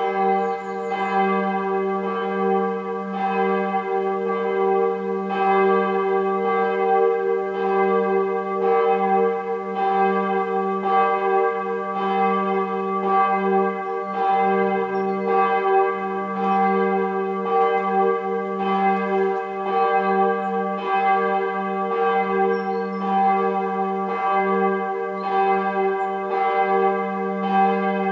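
The third bell of a church peal, a single swinging bell cast in 2002, ringing steadily. Its clapper strikes about once every 1.3 seconds over a sustained ringing hum. It is rung as the call to worship half an hour before the service.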